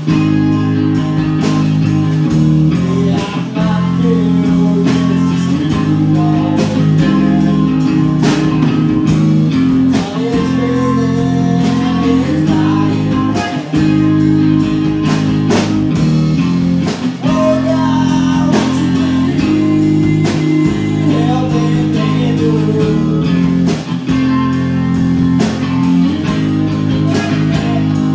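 Live band playing a blues-rock song: electric guitar and drum kit, with a lead singer.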